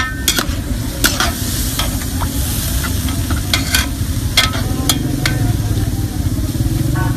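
A metal ladle stirring julienned carrot strips frying in oil in a large aluminium pot, with a sizzle and sharp scrapes and clinks where the ladle hits the pot. A steady low rumble runs underneath.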